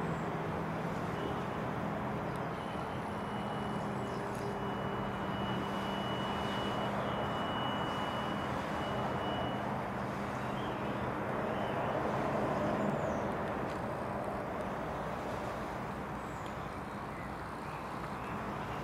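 A motor vehicle or machine engine running steadily with a low hum over a background hiss of outdoor traffic-like noise. A thin high whine sounds from about a second in to about ten seconds in, and the engine hum fades out about two-thirds of the way through.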